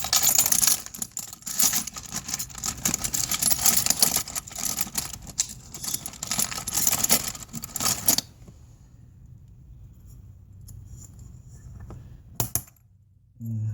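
Metal clattering and scraping from hand tools and the parts of a car audio amplifier being taken apart, busy for about eight seconds, then a single sharp click near the end.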